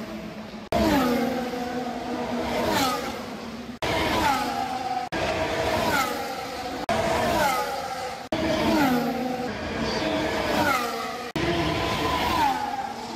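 Formula 1 cars' 1.6-litre turbocharged V6 hybrid engines screaming past at speed, their pitch falling again and again as each goes by. The sound cuts out for an instant several times.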